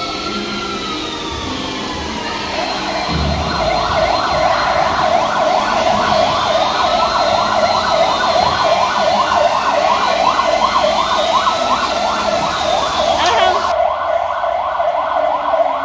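Emergency vehicle siren: a slow rising-and-falling wail, joined about two and a half seconds in by a fast yelping sweep that repeats several times a second. The two continue together.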